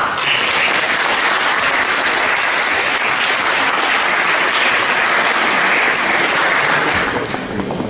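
Audience applauding, starting at once and holding steady for about seven seconds before dying away.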